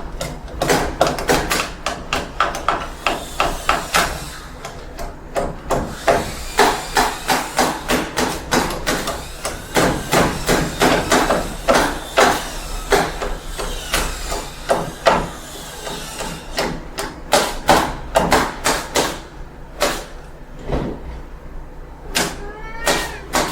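Construction site noise: rapid, irregular banging and hammering strikes, several a second, over a low steady rumble. There are a few short squealing glides near the end.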